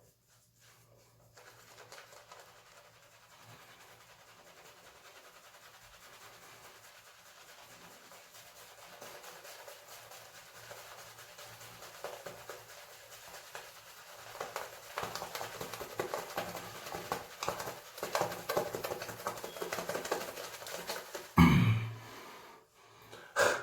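Shaving brush whipping a wet soap lather: a fast, wet, scratchy patter of bristle strokes that grows steadily louder. Near the end it is broken by one loud short burst.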